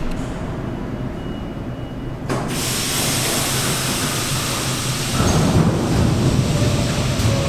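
Budd R32 subway train approaching through an underground station: a low rumble, joined about two seconds in by a steady hiss, and growing louder about five seconds in as the train draws near.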